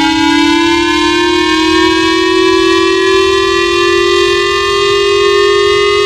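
Japanese J-Alert warning siren: one continuous siren tone, rich in overtones, slowly rising in pitch and levelling off.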